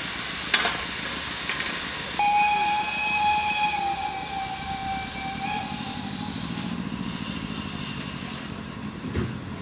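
Steady hiss of steam escaping from the 0-4-0 saddle tank steam locomotive Sir Cecil A. Cochrane, with a few clicks early on. About two seconds in, a steam whistle blows one steady note for about three and a half seconds, dipping slightly in pitch at the end; a low rumble follows and a single thump comes near the end.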